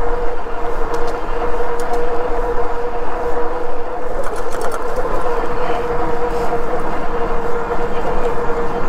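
Himiway Zebra fat-tyre e-bike rolling at a steady speed: a constant mid-pitched whine over a rushing haze of tyre and wind noise.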